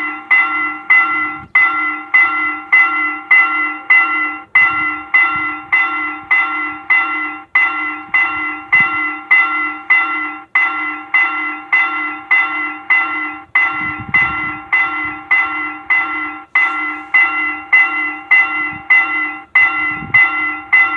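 Railroad level-crossing warning bell ringing steadily at about two strikes a second, warning that a train is approaching.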